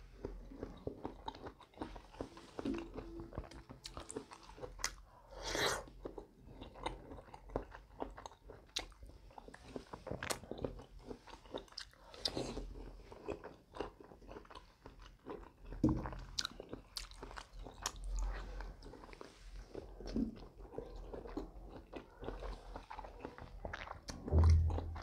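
A person chewing and biting pieces of papaya, close to a clip-on microphone: a continual run of small wet mouth clicks and crunches, with a few louder bites scattered through.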